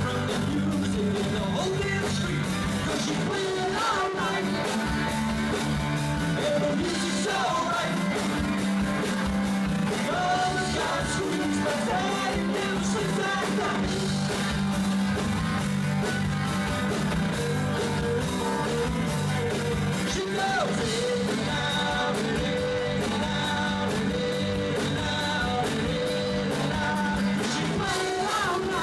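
A live rock band playing a song with a lead singer, electric guitar and bass, the music running steadily without a break.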